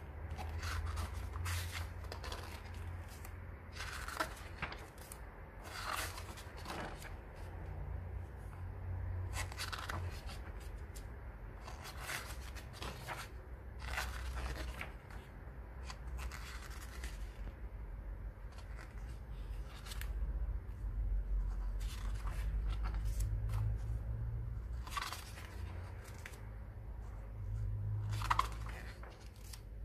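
Pages of a graphic novel being turned one after another, each turn a short papery swish every second or two, over a low steady rumble.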